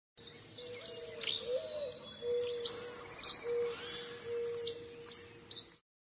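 Birds chirping: short, sharp chirps repeat over a lower whistling note that comes and goes. The sound cuts off suddenly just before the end.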